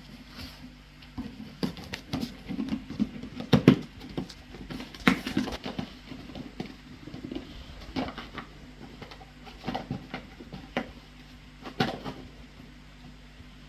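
An Akita dog rooting around for a hidden treat, making irregular taps, knocks and scuffles with its nose and paws. A steady low hum runs underneath.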